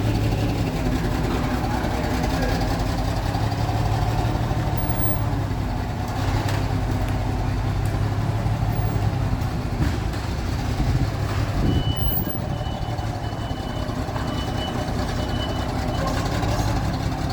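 Forklift engine running steadily as it is manoeuvred. In the second half a high-pitched warning beep sounds for about four seconds.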